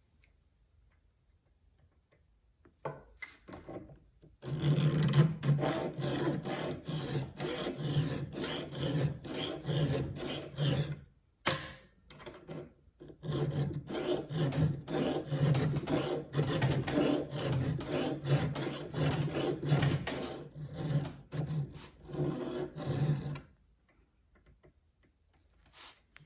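Hand file scraping on the steel cutters of a chainsaw chain, filing the top plate in quick repeated strokes. The strokes start about four seconds in and run in two long bursts, broken by a short pause with a single sharp click. They stop a few seconds before the end.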